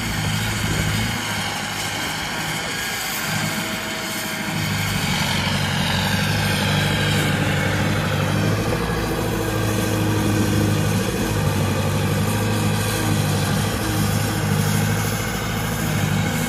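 Engine of a sugarcane-leaf grab loader running steadily. Its low running note thins out for a few seconds near the start and then returns, and a faint high whine falls in pitch about five seconds in.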